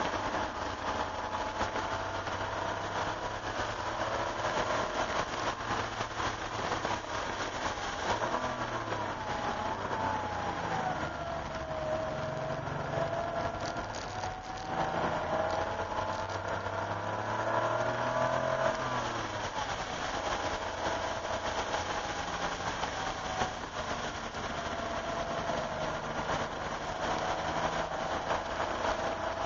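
1988 Porsche 911's air-cooled flat-six heard from inside the cabin on a wet track: the engine note falls as the car slows for a corner, rises as it pulls out in second gear, drops at an upshift about two-thirds of the way through, then holds steady. A steady hiss of wet tyres runs underneath.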